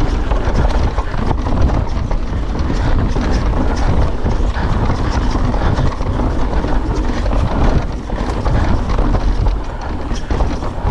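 YT Decoy mountain bike rattling down a bumpy, rooty dirt trail at speed: tyres rolling over dirt and roots, with constant quick knocks and clatter from the bike, over a steady low rumble of wind on the microphone.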